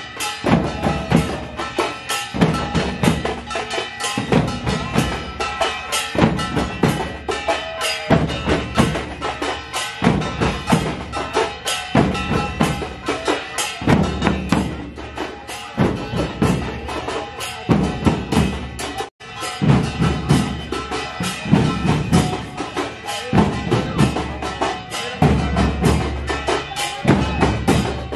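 Music with a steady percussive beat and sustained melodic tones, cut off for a split second about two-thirds of the way through.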